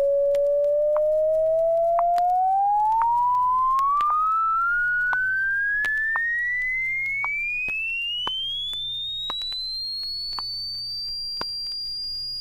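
Audio test tone from a stereo demonstration record: a pure sine tone sweeping steadily upward from about 500 cycles to about 5,000 cycles, growing slightly quieter as it rises, levelling off at the top and cutting off suddenly at the end. Scattered record-surface clicks and a faint hum lie under it.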